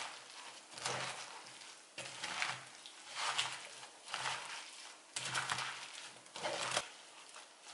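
A gloved hand tossing and squeezing cut bomdong (spring cabbage) leaves in wet chili seasoning in a wooden bowl, a rustling, wet stroke about once a second that stops near the end.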